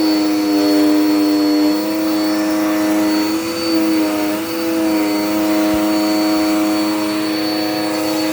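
Dirt Devil Power Max vacuum cleaner running steadily, a motor hum with a thin high whine above it. Its pitch dips slightly a couple of times.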